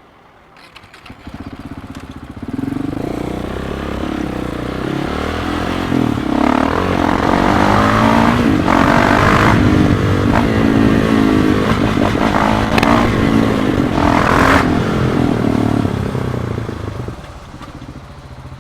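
KTM 690 SMC supermoto's single-cylinder engine through an Akrapovic exhaust, pulling away and revving up, its pitch rising and dropping several times as it accelerates, then easing off near the end.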